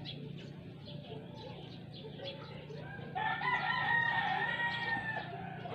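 A rooster crowing once, a single long call of about two seconds starting about three seconds in.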